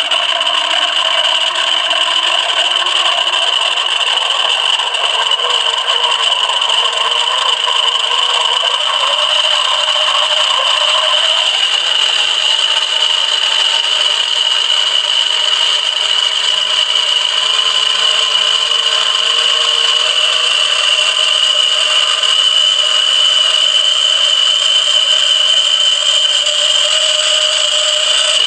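A train of 3D-printed plastic gears spinning at high speed in a water-filled housing, churning the water: a loud, steady mechanical whine with a strong high tone, while lower tones climb slowly as the gears speed up.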